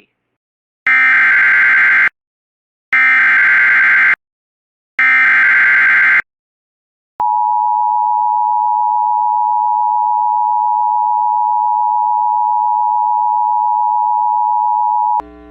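Emergency Alert System SAME header: three bursts of digital data tones, about a second each, followed about seven seconds in by the steady EAS attention-signal tone held for about eight seconds. It marks the start of an emergency alert, here a severe thunderstorm warning.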